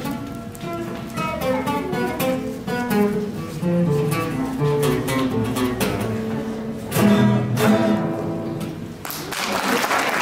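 Three acoustic guitars, one nylon-string and two steel-string, play a picked melody together over a bass line, closing with loud strummed chords. Applause starts near the end.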